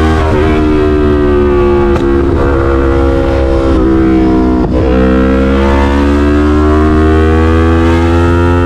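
Yamaha MT-03's 321 cc parallel-twin engine running through an SC-Project full exhaust under acceleration at highway speed. The revs climb steadily, drop sharply with an upshift about halfway through, then climb again.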